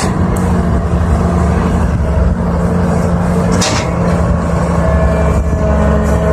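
Caterpillar 320 hydraulic excavator's diesel engine running steadily under load, with two short sharp noises, one at the start and one about three and a half seconds in.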